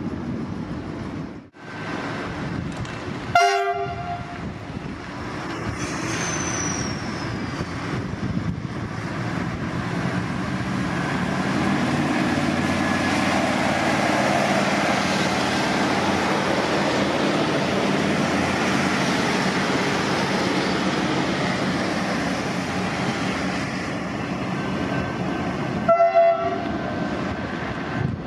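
V/Line Sprinter diesel railcar sounding a short horn blast about three seconds in, then its diesel engine and wheels running steadily on the rails. Another short horn blast comes near the end.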